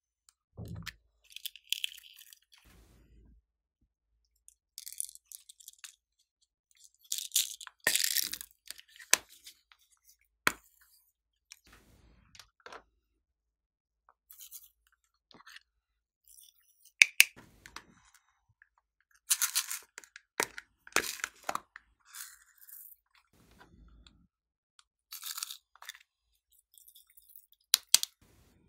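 Scattered sharp clicks and short crackly, rattling bursts: small plastic cases being snapped open and beads, sequins and glitter shaken out onto slime in a glass dish.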